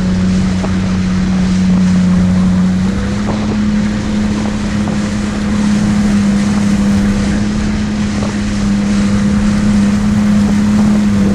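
Jet ski engine running steadily at trolling speed, its hum stepping up slightly in pitch about three seconds in, with water spray churning off the stern and wind on the microphone.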